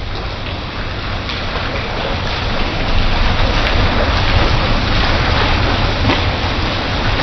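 Steady rain falling on a tiled passage, a loud, even hiss of drops that grows a little louder over the first few seconds.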